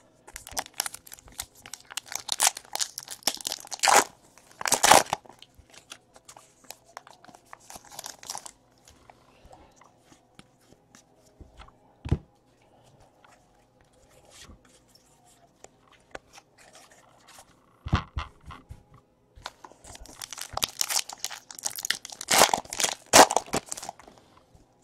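Foil wrappers of Donruss baseball card packs being torn open and crinkled, in three spells of crackling, with two single knocks between them.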